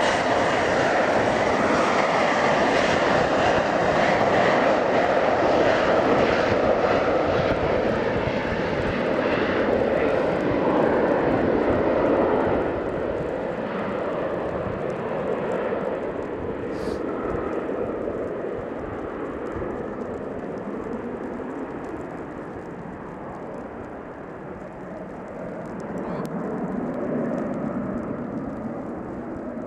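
Finnair Embraer ERJ-170 jet's twin General Electric CF34-8E turbofans at take-off power through the take-off roll and climb-out. The steady rushing noise is loud at first, fades over about ten seconds as the jet draws away, and swells again near the end as it climbs overhead.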